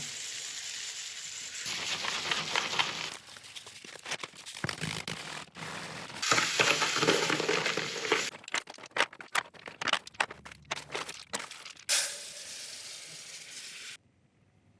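Workshop tool noise in quick edited snippets: hissing and scraping with bursts of sharp clicks and knocks. The sound changes abruptly every second or two and stops suddenly near the end.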